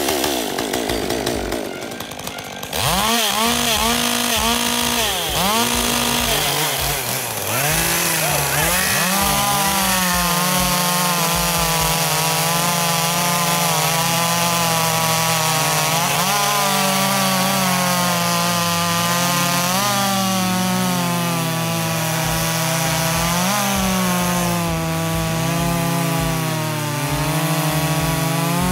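Two two-stroke chainsaws, a Stihl with a 16-inch bar and a Poulan Pro, blipped up and down for the first several seconds, then held at full throttle while cutting through logs side by side, the pitch dipping now and then as the chains bog into the wood.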